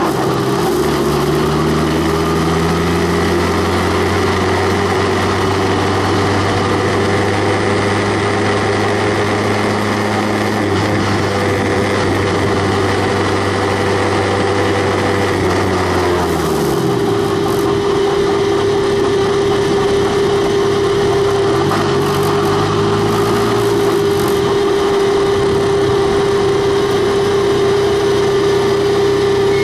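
Onboard sound of a Skip Barber formula car's 2-litre engine running at low revs as the car slows. The engine note drops about halfway through, then holds steady.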